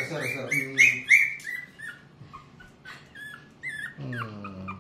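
Shih Tzu puppy yelping: a quick run of high-pitched cries, about five a second, that fades out over the first second and a half, followed by a few short, scattered squeaks.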